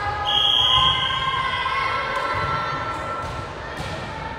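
A referee's whistle blown once, a steady shrill note lasting about a second, over the chatter of spectators in a gym.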